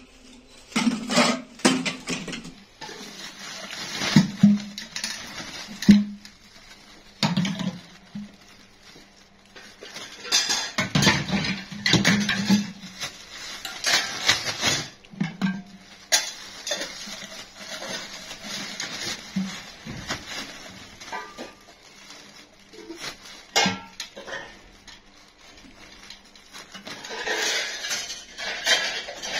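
Clear plastic bags rustling and crinkling as black tractor air filter parts are packed into them by hand, with the hard parts clattering and knocking against each other in irregular bursts.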